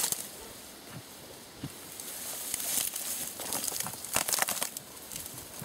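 Dry weeds and brush crackling and rustling as someone pushes through them, with a cluster of sharp snaps about four seconds in.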